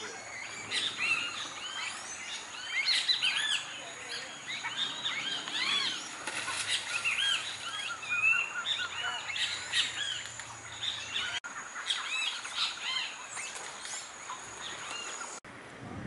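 Several small birds chirping and calling over one another in quick, overlapping short notes, with a thin steady high tone behind. The sound breaks off abruptly twice.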